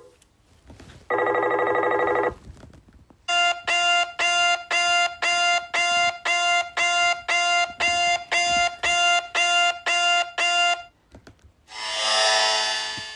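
Electronic ringtone-like tone pulsing about twice a second for several seconds, preceded by a short buzz and followed near the end by a noisy whoosh: a string of synthetic sound effects.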